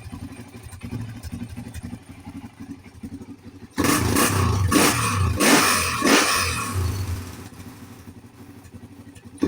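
Honda 400EX ATV's single-cylinder four-stroke engine idling, then revved in several sharp throttle blips from about four seconds in before settling back to idle, just after its carburetor and throttle cable were adjusted to cure a high idle.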